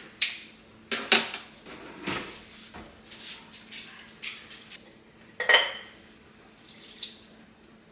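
Metal kitchen utensils and cookware clinking and scraping, a run of separate knocks and clinks, the loudest a ringing metallic clink about five and a half seconds in, as a can of diced tomatoes is emptied into the pot.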